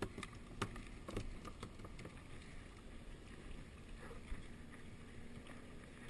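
Faint water lapping and splashing against a plastic sit-on-top kayak, with a few light knocks and taps from gear being handled on the boat.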